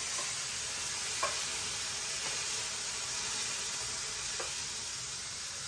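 Sausages and mushrooms sizzling steadily in a frying pan, with a few light taps of a utensil against the pan as the mushrooms are scooped out.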